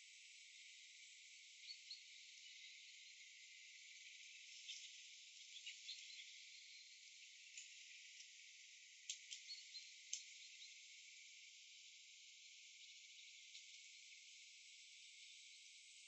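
Near silence: a faint steady hiss with a few scattered faint clicks, bunched near the middle.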